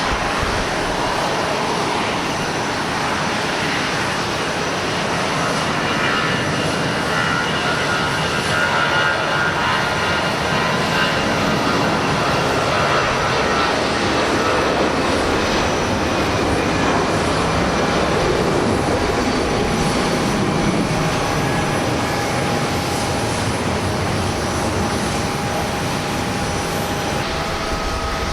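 Large jet airliner's engines running at takeoff thrust: a loud, steady rushing noise with a thin whine running through it, swelling slightly partway through.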